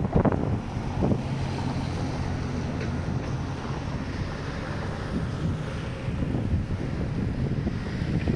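Strong wind buffeting the microphone, with the rush of surf beneath it. There are heavier gusts in the first second or so.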